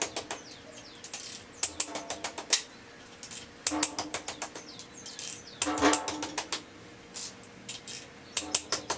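Hand ratchet wrench clicking in short bursts of rapid clicks, over and over, as bolts on an LS 5.3 V8 are worked loose.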